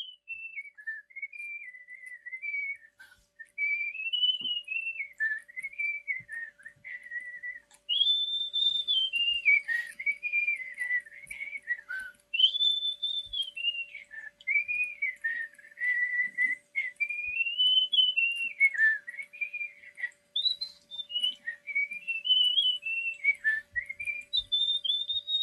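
A person whistling a wandering tune, one clear note line rising and falling in phrases of a few seconds with short breaks between, over a faint steady hum.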